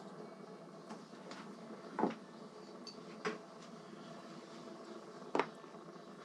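Faint metallic clinks and knocks of hand tools on bolts and mounting hardware while the bolts are being tightened: four separate knocks a second or two apart over a low steady hum.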